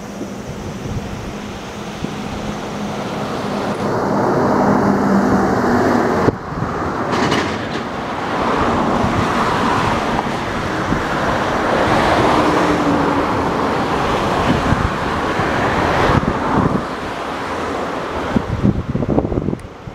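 Wind buffeting the microphone over the rumble of an approaching electric express train, the noise swelling as it draws nearer, with a run of sharp knocks near the end.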